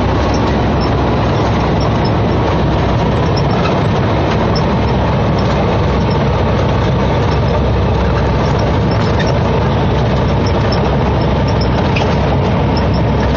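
Semi truck's diesel engine and road noise heard from inside the cab while cruising, a steady loud drone.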